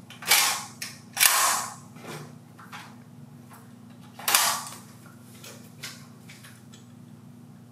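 VFC FN FNC gas blowback airsoft rifle firing three single shots: two about a second apart near the start, a third about four seconds in, each a sharp crack from the gas blowback action. Fainter clicks fall between the shots.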